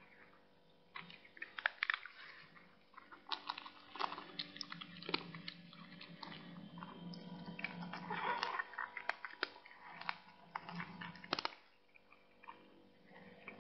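A cat chewing and crunching on something, with irregular crisp crunches and clicks that bunch up about eight seconds in and die away a couple of seconds before the end.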